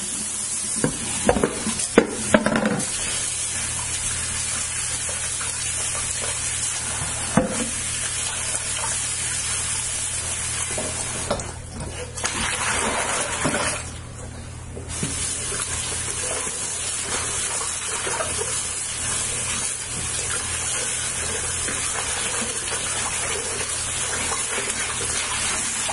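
Kitchen faucet running into a plastic bowl of water in a stainless steel sink as fish and limes are rinsed by hand. A few knocks and clatters come a couple of seconds in and again about seven seconds in, and the running water breaks off briefly about halfway through.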